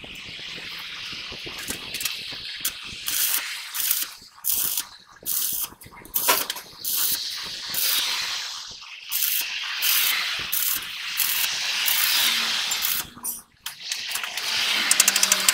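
Stick-welding arc crackling and sizzling as a rod is run on a truck's axle housing, patching holes in it. The arc breaks off and restrikes several times, and the crackle turns into a fast ticking near the end.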